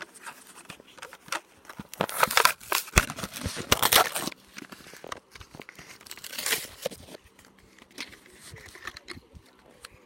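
Hot Wheels blister-card packaging being handled and torn open, with crinkling plastic and tearing cardboard. It is loudest in a run of bursts from about two to four seconds in, with a shorter burst a couple of seconds later.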